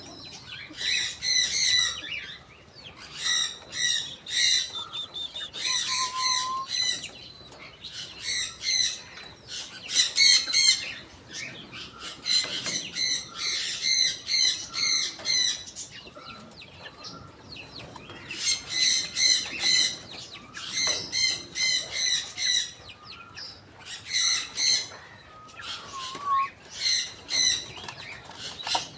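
Young birds peeping: runs of short, high-pitched peeps, several a second, broken by brief pauses.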